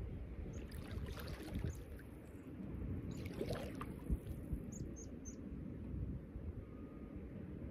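Waders stirring shallow pond water, with soft sloshes about a second in and again around three seconds in, over a steady low rumble outdoors. Short high bird chirps come every second or so.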